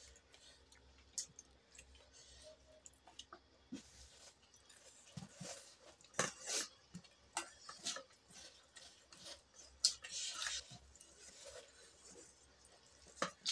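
Close eating sounds of someone eating chicken curry and rice by hand: chewing and mouth smacks, with scattered small clicks and a few short, louder wet bursts, the loudest about six and ten seconds in.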